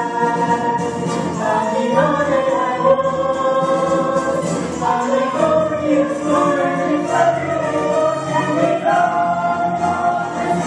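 Choral music: many voices singing long held notes together over an accompaniment, shifting pitch every second or two.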